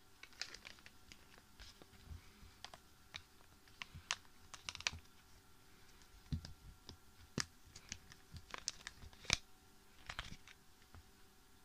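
Hard plastic toy belt strap and buckle being handled: faint, irregular clicks and taps, the sharpest about nine seconds in.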